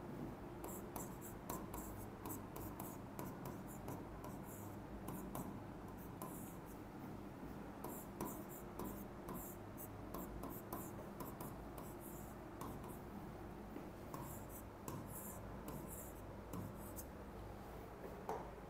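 Writing: runs of quick, scratchy strokes with small taps in between, over a steady low hum.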